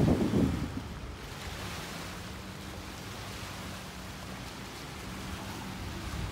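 Small waves lapping on a sandy lakeshore, with wind buffeting the microphone, loudest in a short gust at the start. A faint steady low hum runs underneath.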